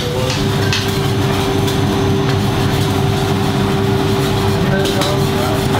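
Steady drone of a commercial kitchen's extraction hood and ventilation, a low rumble with one steady hum-like tone running through it, with a few light utensil clicks.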